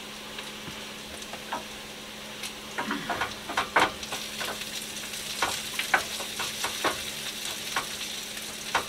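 Potatoes, carrots, sausage and green peppers sizzling in a frying pan, stirred with a wooden spoon. From about two and a half seconds in, the spoon scrapes and knocks against the pan again and again over the steady sizzle.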